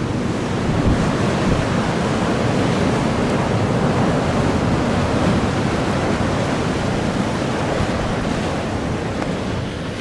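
Heavy ocean surf breaking over shallow rock ledges and washing through the rocks, a steady rush of white water as a set comes in, with wind buffeting the microphone.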